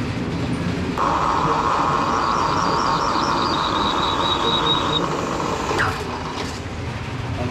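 Milling machine drilling a hole through a plate: the spindle and cutting noise starts about a second in, and a high, thin squeal from the bit steps down in pitch partway through. The noise stops near the end with a falling tone as the spindle winds down.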